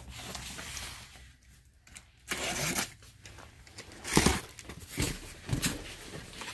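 Box cutter slitting the packing tape along the seam of a cardboard box, with short scratchy rasps and a few sharp crackles from the tape and cardboard, loudest about four seconds in.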